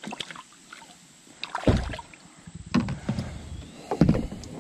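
Several dull thumps and knocks against a plastic kayak hull as a just-landed smallmouth bass is handled aboard, the loudest a little under two seconds in.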